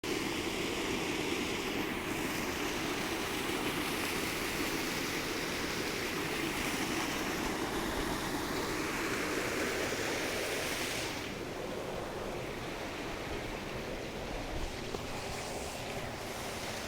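Water rushing steadily, an unbroken hiss; it gets a little softer and less hissy about eleven seconds in.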